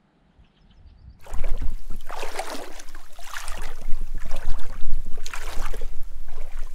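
Loud water splashing close to the microphone, in irregular surges, as a swimmer moves through a lake. It starts abruptly about a second in, after a moment of near silence with a few faint bird chirps.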